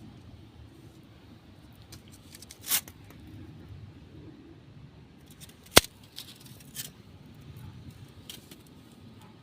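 Metal-layer head gaskets being handled and split apart: a few sharp metallic clicks and snaps, the loudest just under six seconds in.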